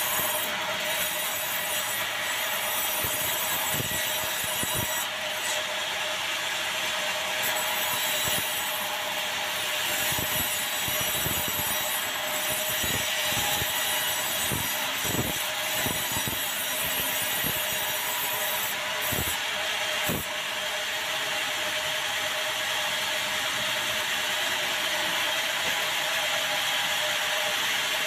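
Large vertical band sawmill ripping dry, very hard bengkirai (yellow balau) timber, a steady, even high saw noise. Scattered low knocks of timber on the table and rollers come between about 4 and 20 seconds in.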